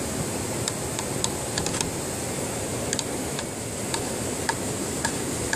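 Steady background hiss with faint, irregular light ticks scattered through it, about a dozen in five seconds.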